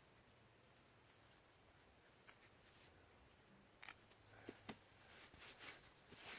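Near silence: faint room tone with a few soft clicks and scratches, coming more often in the last couple of seconds.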